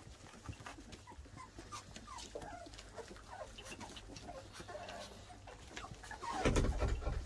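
Black Labrador Retriever puppies squeaking and whimpering in short, sliding little cries while they feed at stainless steel puppy saucer bowls, with scattered small clicks. A louder low rumble comes near the end.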